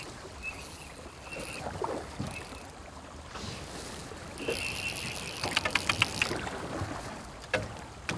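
Fly reel's drag buzzing in short spells as a hooked trout pulls line, with a run of quick clicks a little past the middle.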